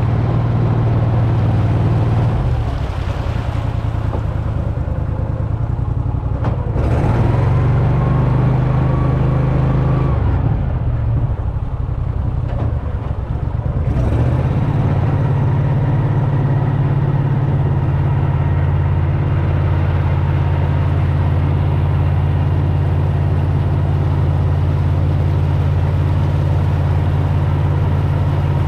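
Boat motor running steadily at speed, its pitch shifting a few times in the first half, then holding even.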